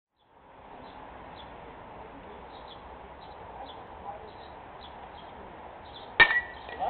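Steady ballfield ambience with faint bird chirps, then about six seconds in a single sharp crack from the pitched baseball's impact.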